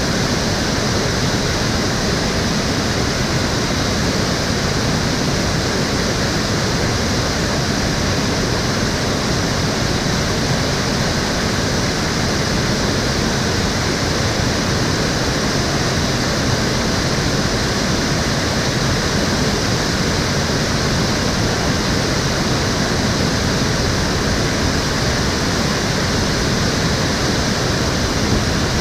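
Water of an urban stream flowing, a steady, even rush of water with no change throughout.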